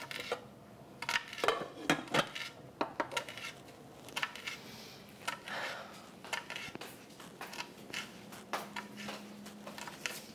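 Kitchen utensils, dishes and pots being handled at a counter: irregular clinks and knocks of cutlery and crockery throughout.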